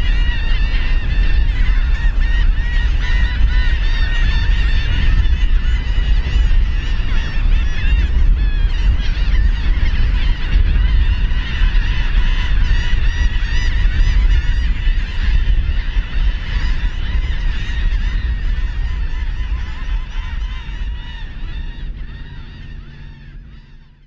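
A flock of gulls calling, many squawks overlapping, over a steady low rumble. Everything fades out gradually over the last several seconds.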